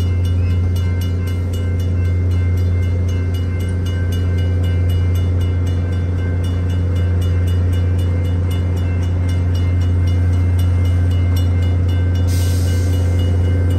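Passenger train rolling through a grade crossing: a steady low drone with the crossing's warning bell ringing in a quick, even beat. About twelve seconds in a hiss joins as the locomotive at the rear draws near.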